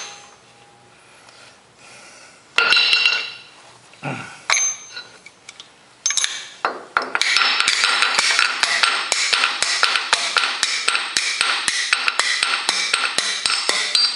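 Hand tools clinking against the steel fittings of a tractor hydraulic line as an adjustable wrench works the fitting loose. There are a few separate metallic knocks first, then from about six seconds in a fast, steady run of light metal clinks.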